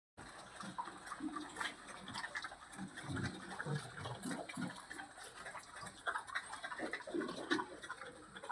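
Pigs grunting, short low grunts at irregular intervals, among scattered clicks and wet, splashy noise.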